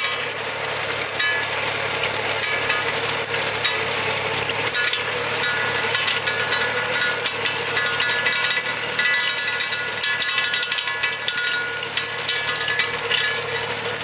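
Small four-wheel tractor running steadily while it pulls a potato digger, whose bar-chain elevator rattles and clatters continuously as soil and potatoes sift through it, with steady high tones running over the clatter.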